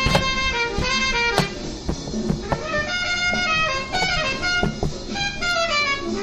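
Instrumental music with a jazzy horn melody over a regular drum beat.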